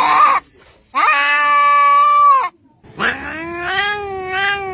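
A cat yowling in long drawn-out calls. One call, held at a steady pitch for about a second and a half, starts about a second in. Another begins near the end with a rising pitch and wavers as it goes on.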